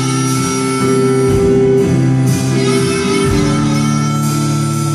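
Live band playing an instrumental passage: sustained guitar notes over drums, with cymbal and bass-drum hits every second or two, recorded on a phone from the audience.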